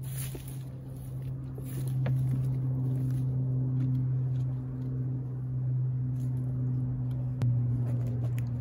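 A steady low motor hum with a few faint clicks, shifting slightly in pitch about seven seconds in.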